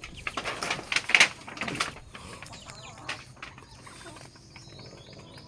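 A run of knocks and scraping in the first two seconds, the loudest about a second in, then quieter, with faint, short, high chirps from the chickens.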